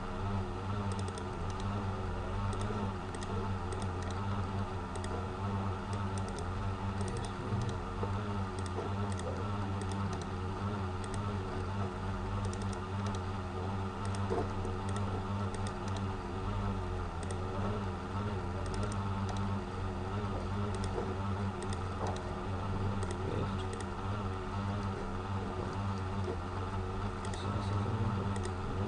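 Typing on a computer keyboard: irregular key clicks scattered throughout, over a steady low hum.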